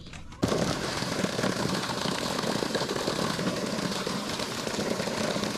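Ranger bass boat running through a narrow, shallow creek: a steady engine drone mixed with water rushing and splashing at the bow. It starts abruptly about half a second in.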